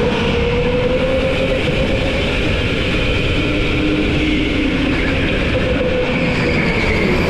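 Go-kart engines running at speed over a steady rumble, their pitch drifting slightly down and back up.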